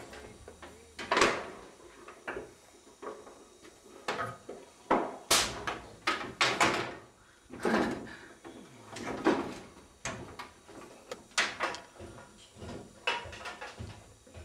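Wooden boards being handled on a stack of lumber: a dozen or so separate knocks and clunks at irregular spacing, with scraping between them.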